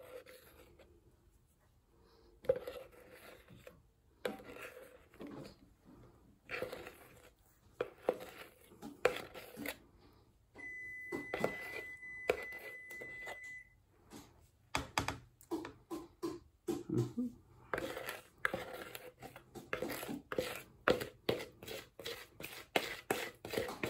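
Spatula scraping thick brownie batter out of a mixing bowl in short, irregular strokes. About eleven seconds in, a steady electronic beep sounds for about three seconds: the oven signalling that it has preheated.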